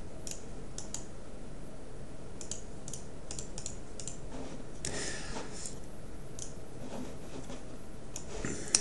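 Computer keyboard keystrokes and mouse clicks, irregular and scattered with a brief flurry about halfway through, over steady background noise.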